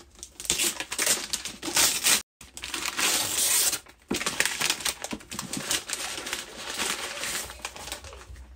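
Paper and cardboard packaging crinkling and rustling as a gift box is opened by hand, dense with small crackles, with a brief dropout about two seconds in.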